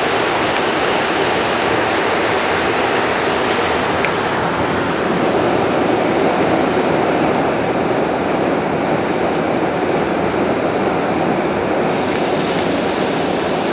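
Inside an MR-73 rubber-tyred metro car running at speed: a loud, steady rush of running noise. The highest hiss softens about a third of the way in, and the car is passing a station platform near the end.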